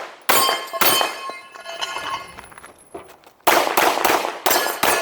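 Pistol shots fired in two strings, two about a second in and three more near the end, each followed by the ringing clang of steel targets being hit.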